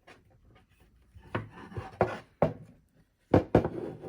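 Wooden stand parts being handled and fitted together: about five sharp wooden knocks and clacks, with rubbing and scraping between them.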